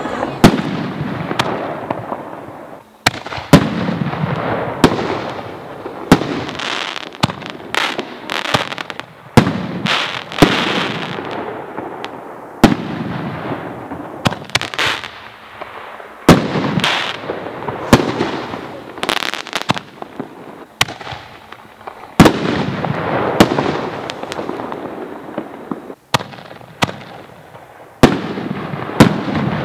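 Illyrian Pyro Double Eagle canister shells, double-break aerial shells, firing from mortar tubes and bursting overhead. There is a string of sharp bangs every second or two, some in close pairs, with a noisy rumble and echo between them.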